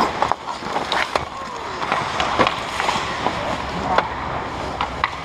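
Ice hockey skates scraping and carving on the rink ice, with sharp clacks of sticks hitting the ice and puck scattered throughout, and indistinct players' voices.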